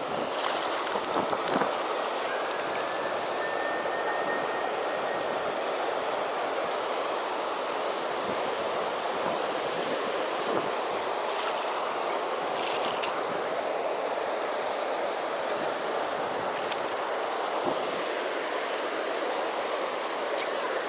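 Steady rushing of river water spilling over a low weir, with a few faint clicks in the middle.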